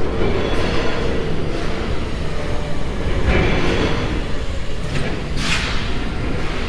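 Constant rumble of wind and road noise on a bicycle-mounted action camera's microphone, with brief hissing surges about halfway through and again near the end.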